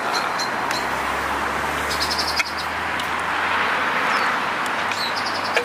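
Steady hiss of a portable cartridge gas stove's lit burner, with a vehicle rumbling past that swells and fades. Light clinks and scrapes of a spoon on a pan and plate as food is served.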